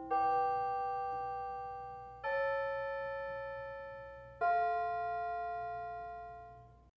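Piano playing three slow chords, each struck about two seconds apart and left to fade; the sound cuts off abruptly near the end.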